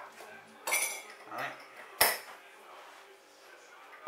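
A metal teaspoon clinking against crockery while sugar is put into a drink. There is a ringing clink about two-thirds of a second in and a sharper, louder knock about two seconds in.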